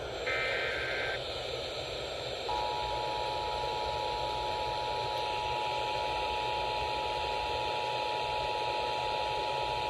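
Emergency Alert System broadcast over radio static. A short burst of warbling digital header tones comes about a second in, then from about 2.5 s the steady two-tone EAS attention signal, marking the start of a severe thunderstorm warning.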